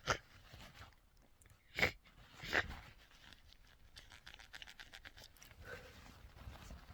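A person with a head cold sniffling: three short, sharp sniffs in the first three seconds, then only faint small clicks.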